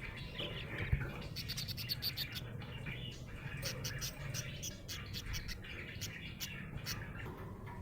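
Budgerigar chirping and warbling, broken by quick runs of sharp clicks.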